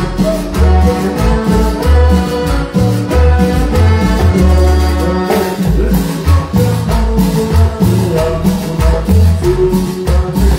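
Live Latin cumbia band playing through a stage sound system: a pulsing bass line, sustained melodic notes and steady percussion, with a güiro scraped in rhythm.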